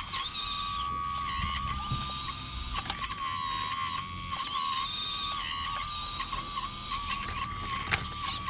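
RC hydraulic excavator's pump whining at a steady high pitch, dipping briefly in pitch several times. Faint high chirps sound above it.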